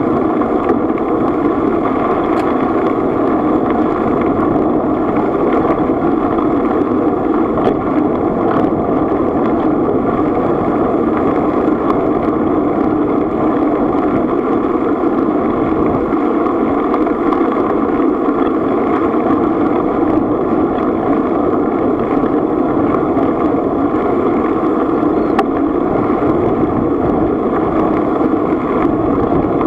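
Steady rushing noise of a bicycle rolling along a gravel path, picked up by a camera mounted on the bike: tyre rumble mixed with wind on the microphone, with a few faint ticks.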